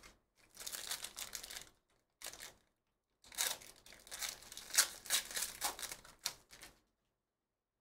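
Foil wrapper of a Donruss basketball hobby pack crinkling as it is picked up and handled, then torn open with a longer run of crackling and tearing from about three seconds in until nearly seven seconds.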